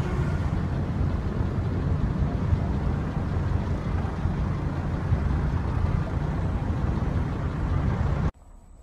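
Steady low vehicle rumble of engine and road noise, with no clear pitch, cutting off abruptly near the end.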